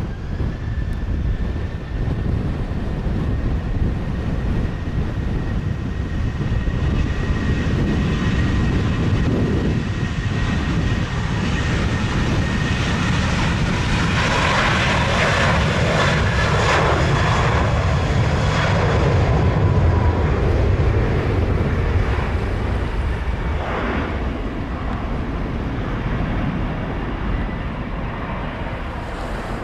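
Southwest Boeing 737 twin jet engines at takeoff thrust during the takeoff roll. A steady high whine sits over a deep rumble, growing louder as the jet accelerates past about two-thirds of the way through, then fading as it moves away and rotates.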